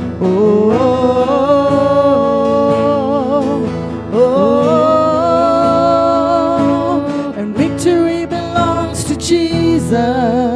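A singer holding long, wavering sung notes of a slow worship song over instrumental accompaniment, with two long held notes in the first seven seconds before shorter phrases.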